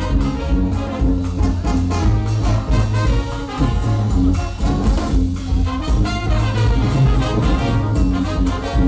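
Brass band playing live: trumpets and trombones over a sousaphone bass line and a drum kit, in a steady, driving groove.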